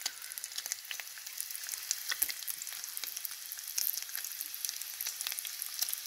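Bacon strips frying in a pan: a steady sizzle with many small crackles and pops.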